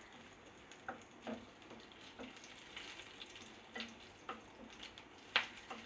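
Cumin seeds and chopped green chilli frying in hot oil in a kadai: a steady sizzle broken by scattered sharp clicks, the loudest near the end.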